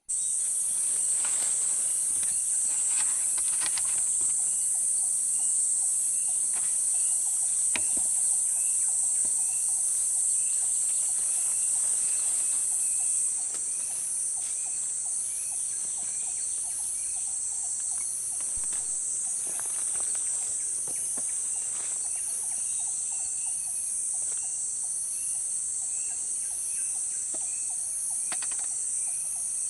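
Loud, steady, high-pitched chorus of insects shrilling continuously with a gentle regular pulse, while a bird gives short repeated chirps and a few faint knocks sound.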